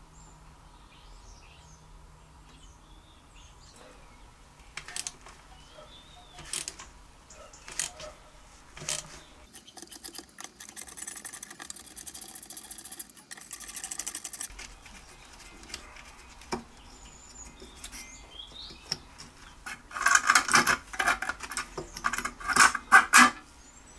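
Scattered knocks and clicks of hand work on small engine parts, with a stretch of fast, fine scraping in the middle and a louder run of brisk scraping strokes near the end. Birds chirp faintly.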